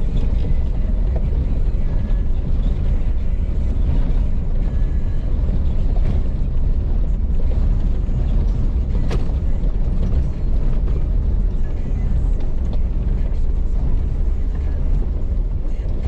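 Off-road vehicle driving over a rough dirt track: a steady deep rumble of engine, tyres and suspension, with a sharp knock about nine seconds in.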